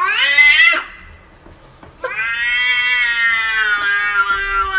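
A cat yowling: a call that rises sharply in pitch and breaks off about a second in, then after a short pause a long, drawn-out yowl from about two seconds in.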